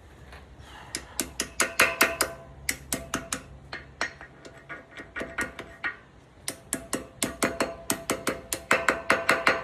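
Hammer and punch tapping the metal lock ring of a Nissan Patrol front wheel hub round to tighten the wheel bearings. Quick, evenly spaced metallic taps, about five a second, each with a short ringing note, thinning out for a couple of seconds in the middle.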